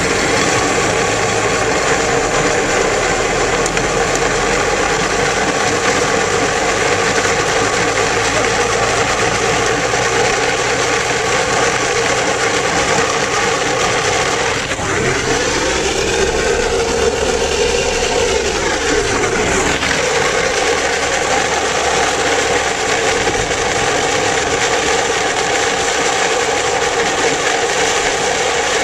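Steady rolling roar and rattle of a plastic toy car's hard wheels on asphalt as it is towed on ropes, with a sweeping whoosh for about five seconds around the middle.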